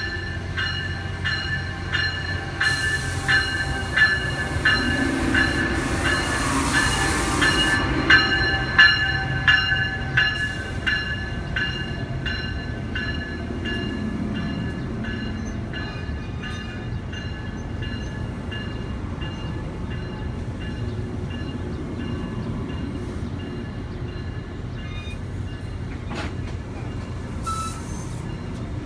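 Amtrak passenger train slowing to a stop alongside the platform: wheels click over rail joints, fast at first and then more sparsely, under a steady high brake squeal that fades out a few seconds before the end. A loud hiss of air comes about three seconds in and lasts some five seconds, and there is a short hiss near the end.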